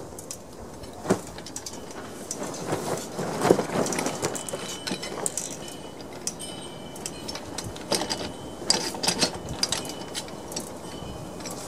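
Irregular metallic clinks and knocks from hands pulling the loosened head bolts and lifting the cylinder head off a small Briggs & Stratton engine, the loudest about a second in, about three and a half seconds in, and around eight to nine seconds in.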